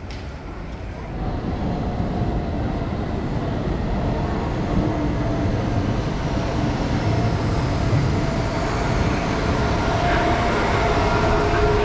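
Brasília Metro electric train approaching, growing steadily louder: a rumble of wheels and running gear with a whine of several steady tones from its electric drive.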